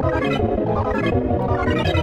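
Synthesized emergency-alert alarm music: dense electronic tones with quick runs of notes stepping upward about once a second.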